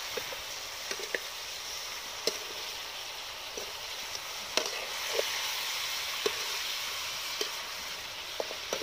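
Pork pieces sizzling in a black iron wok while a metal spoon stirs them. The spoon gives about ten sharp, irregular clinks and scrapes against the pan, and the sizzle grows a little louder in the middle as the meat is turned.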